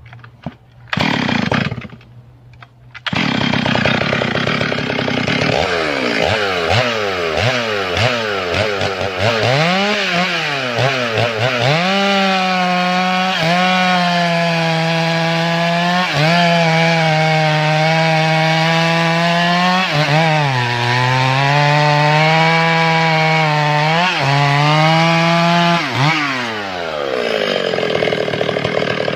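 Stihl MS 382 72 cc two-stroke chainsaw with a 52 cm bar and a new chain: after a short burst about a second in, the engine starts about three seconds in and is revved several times. It then runs at full throttle through a large log for about 14 seconds, its pitch dipping under the load of the cut, and drops back to a lower run near the end as the throttle is released.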